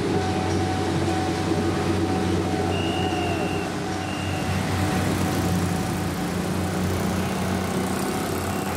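Road traffic: motorcycle and scooter engines running in a steady din with a low hum underneath. Two short high-pitched beeps sound about three and four seconds in.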